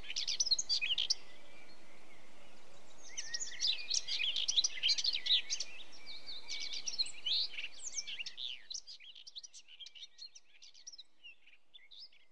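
Several songbirds chirping and singing in quick, overlapping calls over a steady background hum of outdoor ambience. About eight seconds in, the hum drops away and the chirps trail off quieter.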